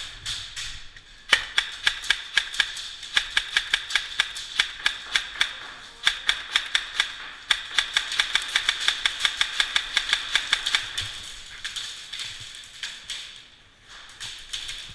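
Airsoft guns firing in rapid bursts: a fast run of sharp cracks starting about a second in and lasting until about eleven seconds, with a short break around six seconds and a few scattered shots near the end.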